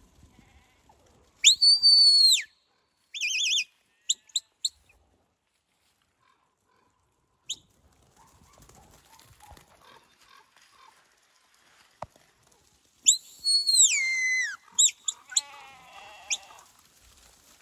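Sheepdog handler's whistle commands to a working herding dog: a long high whistle that rises and falls, a short warbling trill and a few quick chirps, then after a long pause a long whistle sliding down in pitch followed by more short chirps.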